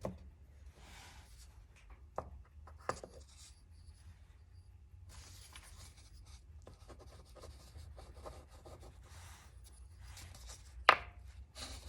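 Four-colour ballpoint and mechanical pencil multi-pen writing on paper in short scratchy strokes, with a few sharp clicks, the loudest near the end.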